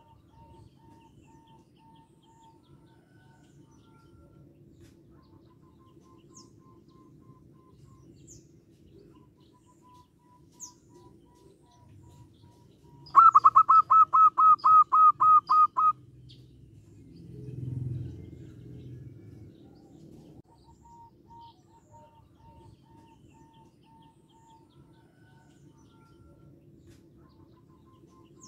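Zebra dove calling: a quick, even run of about a dozen loud staccato cooing notes lasting about three seconds, midway. Fainter runs of similar notes come before and after, and a brief low rumble follows the loud run.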